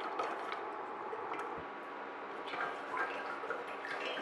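Faint scattered ticks and small liquid sounds of hide-and-gelatin glue being stirred with a stick in an enamel pot.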